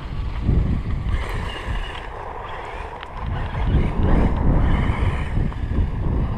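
Wind buffeting the microphone, with the faint whine of an RC truck's electric motor and drivetrain rising and falling twice as the truck accelerates across gravel and pavement.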